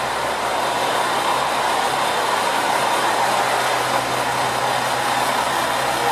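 KiHa 40 diesel railcar's engine idling steadily while the train stands at the platform.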